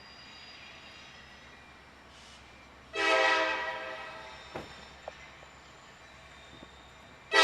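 A diesel locomotive's Nathan K5LA five-chime air horn blowing for an approaching train: a faint chord fading at the start, a loud blast about three seconds in that dies away over about two seconds, and another loud blast starting at the very end.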